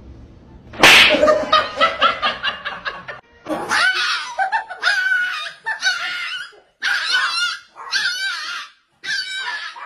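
Someone laughing hard: a quick run of rapid laughs starting about a second in, then several longer, high-pitched laughs broken by short pauses.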